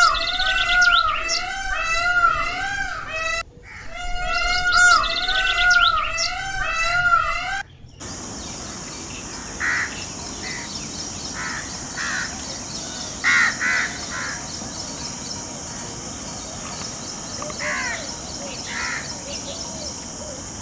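Indian peacock calling: a loud run of quick, repeated honking notes, two or three a second, for the first seven or eight seconds. It then gives way to a steady high insect hiss with occasional short chirps from small birds.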